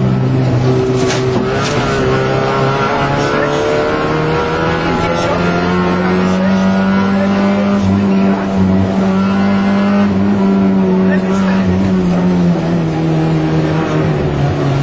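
Rally car engine heard from inside the cabin, running hard under load on a stage. Its pitch climbs slowly over the first few seconds, holds high, then falls back near the end.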